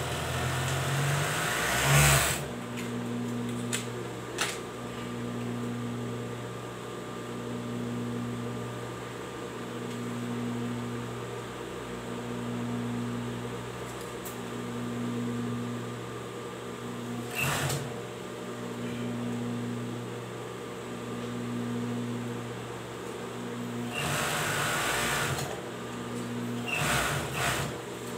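Overlock (serger) machine running with a steady hum that swells and fades every couple of seconds. A few short, louder noises break in: about two seconds in, in the middle, and near the end.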